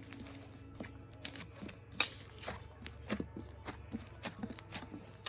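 Soft butter slime worked by hand, giving irregular small clicks and squelches as fingers press, fold and stretch it.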